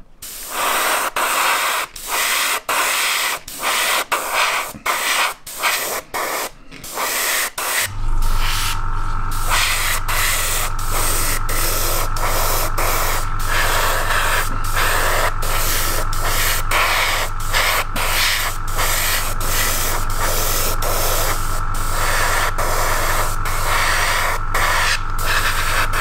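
Airbrush spraying Stynylrez primer in short hissing bursts with brief gaps between them, primer that is not spraying very well. About eight seconds in, an air compressor starts and runs with a steady hum under the continuing spray.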